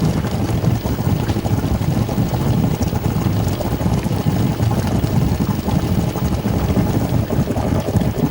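Cooking in a pan: steady, dense sizzling and crackling with a strong low rumble underneath.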